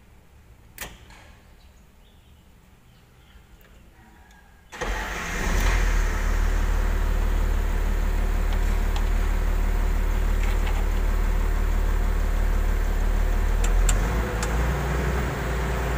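Komatsu PC200-6 excavator diesel engine starting about five seconds in and settling into a steady idle. It is a cold test start just after its fuel injector nozzles were repaired, which had been blamed for blue-white smoke.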